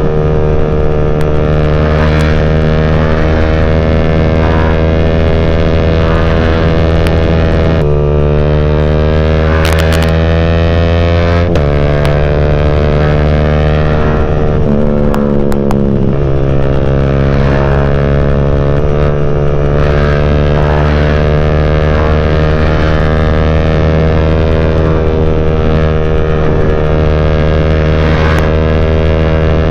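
Yamaha Y15ZR's single-cylinder four-stroke engine through a CJ Ipoh aftermarket exhaust, heard onboard while riding: a loud, steady exhaust note that steps in pitch twice in the first half and dips briefly in the middle before settling again.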